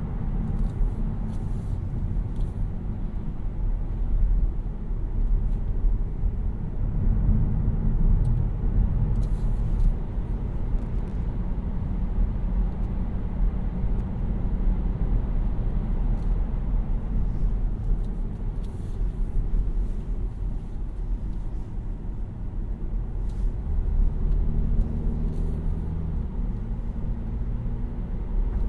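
2018 Kia Niro 1.6 GDi Hybrid driving: a steady low road and tyre rumble. A low drone with a few steady tones stands out for a couple of seconds about three-quarters of the way through.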